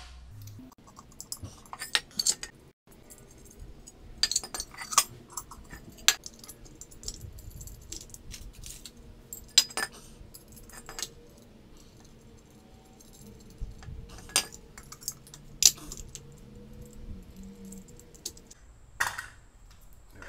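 Light, irregular metallic clinks and taps of small steel hardware, bolts and a pipe floor flange, being handled and set against a cast-iron brake drum.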